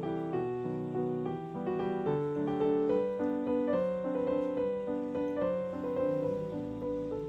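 Background music: piano playing a melody.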